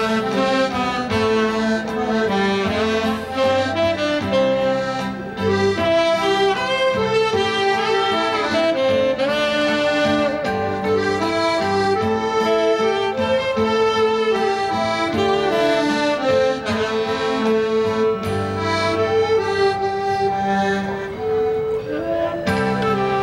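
Piano accordion and saxophone playing a melody together as a live duet, the accordion's bass and chords under the saxophone line.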